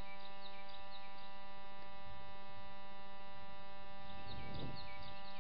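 Steady electrical buzz in the recording, a fault of the recording gear, running at a constant level. Over it a bird chirps in two short bouts, at the start and again about four seconds in.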